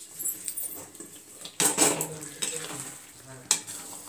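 Metal spatula stirring and scraping thick, simmering spinach gravy in a metal kadhai, with irregular clinks of metal on the pan and some sizzling; the loudest clatter comes about halfway through.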